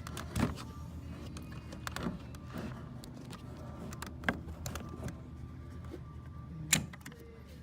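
Scattered plastic clicks and knocks as hands work a clip or fastening loose behind a Toyota 4Runner's front door panel, with one sharp click near the end.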